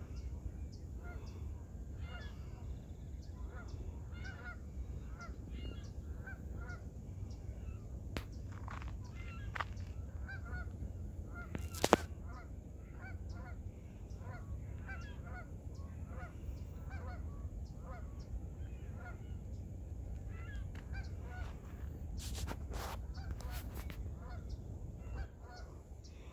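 Geese honking over and over, many short calls throughout, over a steady low rumble. One sharp click about halfway through.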